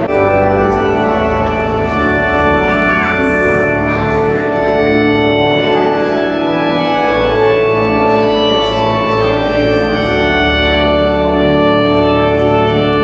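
Church organ playing a wedding processional in long, held chords that change every few seconds.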